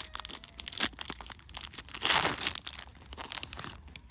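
Foil booster-pack wrapper crinkling and being torn open, with a louder rip about two seconds in.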